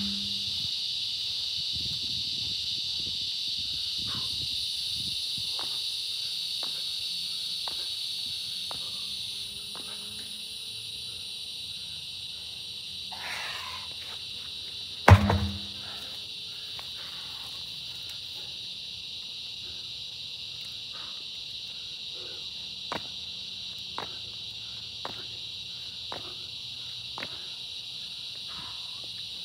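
A steady high insect chorus, louder in the first third. About halfway through comes one heavy thud as a large truck tire, tipped over in a tire flip, lands flat on the concrete sidewalk. A few faint clicks follow near the end.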